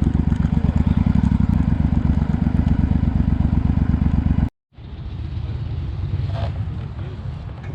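Motorcycle engine running under way, a loud low pulsing beat. About four and a half seconds in it cuts off abruptly, then returns quieter.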